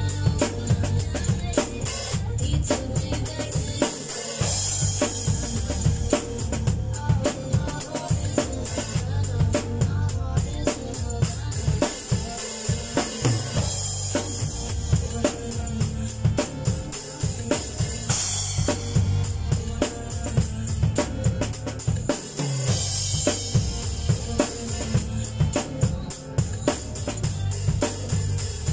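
Acoustic drum kit played in a steady groove: bass drum, snare with rimshots and cymbals, with louder crash-like splashes about five seconds in, around eighteen seconds and around twenty-three seconds.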